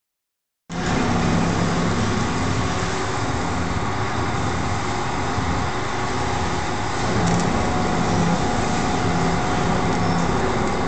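Two-roll rubber mill running while mixing silicone: a steady mechanical drone of the motor and roll drive with a low hum, cutting in abruptly under a second in.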